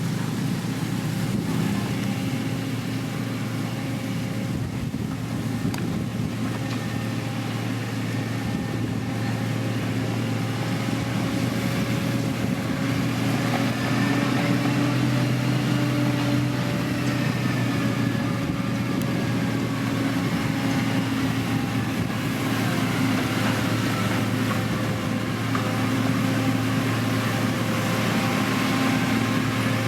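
Diesel engine of heavy road-building machinery running steadily under load, its pitch rising slightly about halfway through and then easing back.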